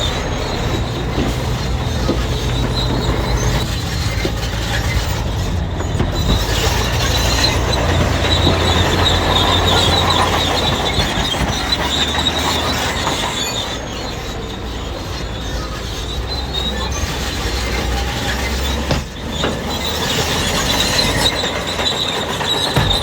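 Crawler bulldozer's diesel engine running under load, with a high steady squeal from its steel tracks as it moves.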